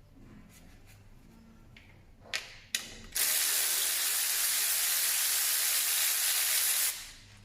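Two short knocks, then a steady pressurised spray hissing for nearly four seconds before it cuts off.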